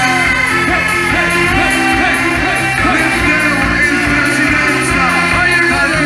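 Music: a song with a singing voice over a steady band accompaniment.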